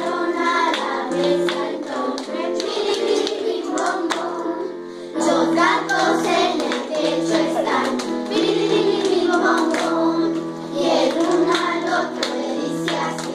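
Children's choir singing a song together, with held sung notes, somewhat louder from about five seconds in.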